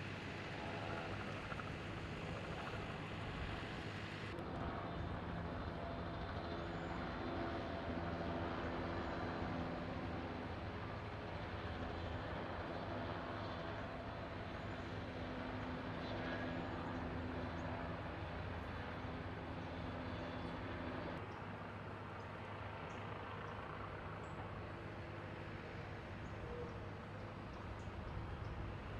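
Heavy vehicle engines running steadily, a low hum with several level tones.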